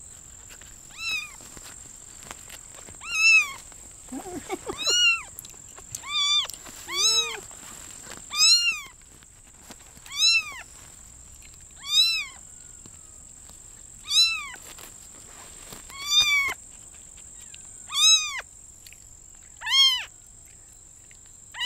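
Young tabby kitten mewing over and over, about once every two seconds, each call a high cry that rises and then falls in pitch.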